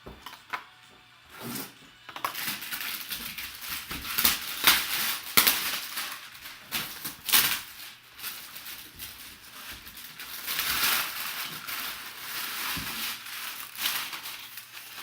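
Plastic shrink wrap being torn off a sealed box and crumpled, a dense crackling with sharp snaps, starting about two seconds in and stopping just before the end.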